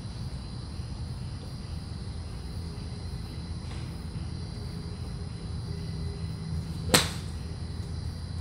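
A golf club strikes a range ball off a hitting mat: one sharp crack about seven seconds in, over a steady low hum.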